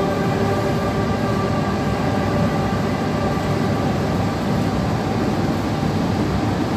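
Exhibit soundtrack playing over loudspeakers: a steady rumbling drone with a few faint held tones above it.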